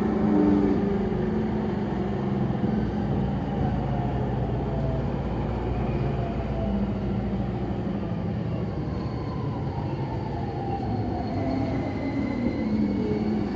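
Onboard running sound of a JR East E231 series motor car braking: steady wheel-and-rail noise with whining tones from the Mitsubishi IGBT inverter drive that fall in pitch as the train slows. Under braking this car makes an abnormal growl, which the recordist suspects comes from the gear unit.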